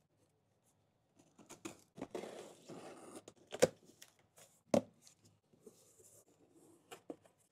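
Cardboard shipping box being cut open and unfolded: packing tape slit with a hobby knife, then cardboard flaps rustling and scraping as they are pulled open, with two sharp knocks about a second apart.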